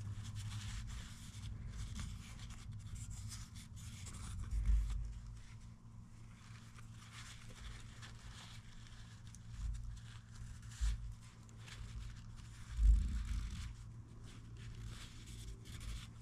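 A shop rag scrubbing and wiping the inside of an International Harvester 1066 tractor's cast-iron PTO housing, in irregular scratchy strokes, cleaning out dirt before it is reassembled. Two dull low bumps are heard, about a third of the way in and again more loudly past the three-quarter mark.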